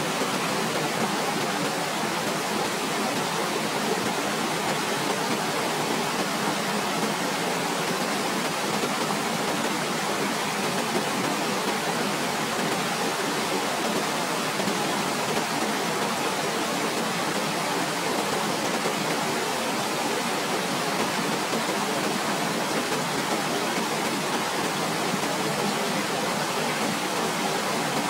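Waterfall: a steady, unchanging rush of falling water.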